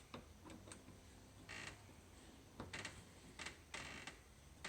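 Faint clicks and a few short scrapes from handling deadbolt hardware and screws on a door. The scrapes come about a second and a half in, twice near three seconds, and once near four seconds.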